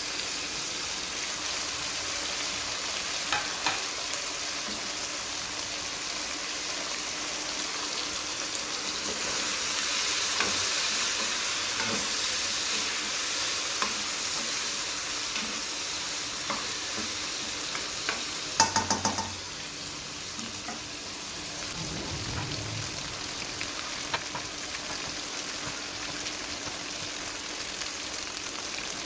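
Food sizzling as it fries in oil in a pan, stirred now and then with a utensil. A quick run of sharp metal clinks comes a little past the middle.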